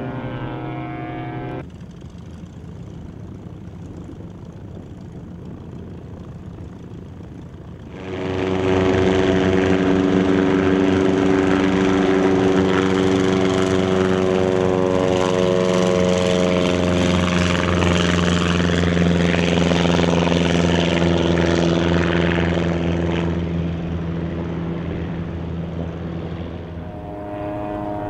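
Lake amphibian's pylon-mounted pusher propeller engine racing the plane across the water. It comes in suddenly and loud about a third of the way in, a steady propeller drone whose pitch sinks slightly as it passes, then fades. Before it, a quieter stretch, and at the very start and near the end a fainter airplane drone.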